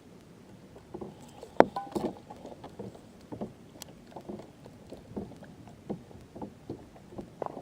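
Kayak paddling: the paddle blades dip and splash into the water in an uneven rhythm of two or three strokes a second, with a sharp knock about a second and a half in.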